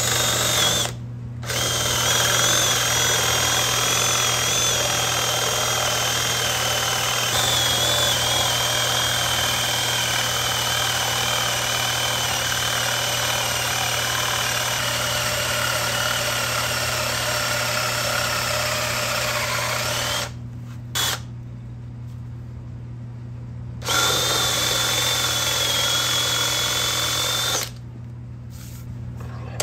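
Drill press boring into walnut with a large Forstner bit: a steady motor hum under a loud cutting noise with a high whine. The cutting stops about two-thirds through, comes back for a few seconds, then only the motor runs.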